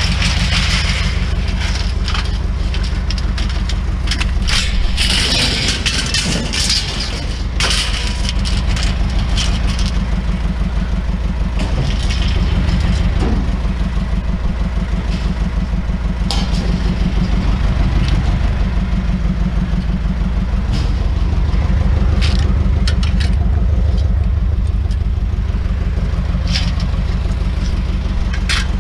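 A truck engine running steadily, with scattered metallic knocks and clatters of scrap metal being handled, heaviest about five to eight seconds in.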